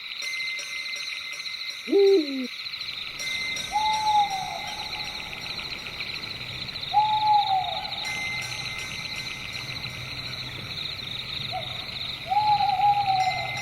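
Owl hooting four times, a few seconds apart, each hoot sliding down in pitch. Under the hoots runs a steady high chorus of night insects.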